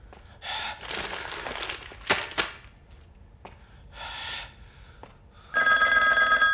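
Desk telephone ringing, a loud steady ring of several pure tones sounding together that starts about five and a half seconds in. Before it come quieter rustling and a couple of sharp knocks.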